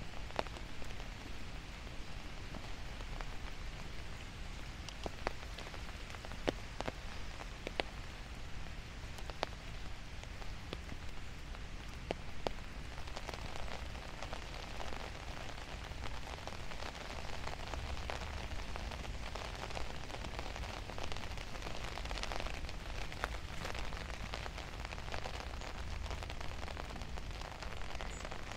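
Steady rain falling, with frequent sharp ticks scattered through it.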